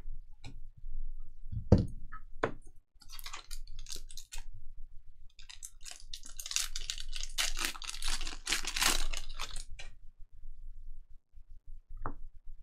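Trading card packs and cards being handled: a few light knocks in the first couple of seconds, then crinkling and rustling of pack wrappers and cards, heaviest from about six to ten seconds in.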